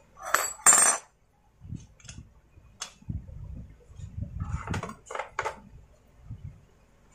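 Clicks, clinks and knocks of a Stihl MS250 chainsaw's plastic housing and metal parts being handled and seated during assembly. Two louder rattling scrapes come in the first second, then scattered sharp clicks.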